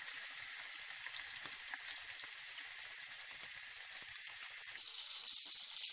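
Skewers of meat and onion frying in hot oil in a pan: a steady sizzling hiss with small crackles, which grows louder about five seconds in.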